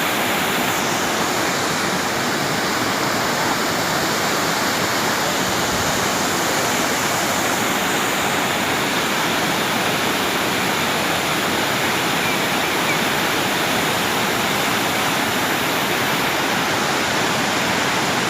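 Waterfall rushing steadily, a loud, even roar of falling water that does not change.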